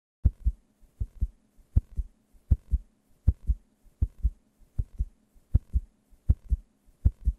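Heartbeat sound effect: deep double lub-dub thumps at a steady pace of about 80 beats a minute, over a faint steady hum.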